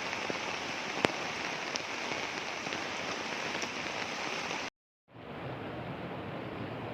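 Heavy rain falling in a steady hiss, with a few sharp drip clicks. The sound cuts out for a moment just before the middle and comes back slightly duller.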